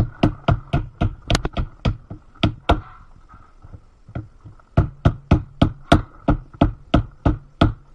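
Small hammer tapping a white pin into a hole in a single-pole Powerlock connector's housing: quick, sharp strikes about three a second, pausing for about two seconds in the middle before the tapping resumes.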